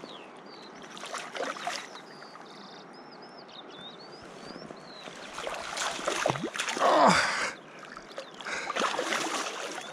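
River water running steadily, with bouts of splashing about halfway through and again near the end, the loudest around seven seconds in. A small bird chirps several times about three seconds in.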